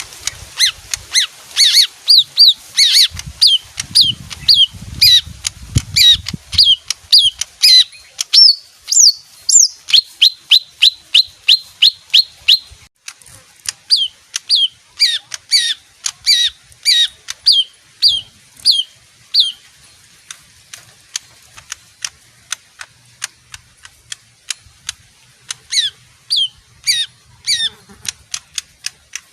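Leafbird singing: a long run of short, sharp, downward-sliding notes repeated about two to three a second, broken by a pause a little before halfway, dropping to faint ticks for several seconds, then resuming briefly near the end.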